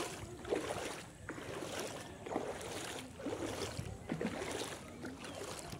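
Footsteps wading through shallow muddy floodwater, splashing and sloshing with each stride about once a second.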